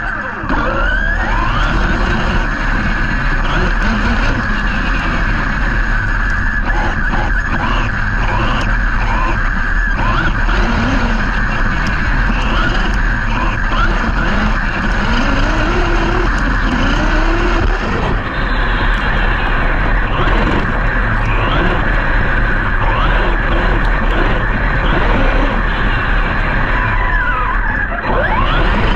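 Large brushless electric RC off-road trucks running hard: high motor whine that keeps rising and falling as they accelerate and back off, over the noise of tyres churning the ground.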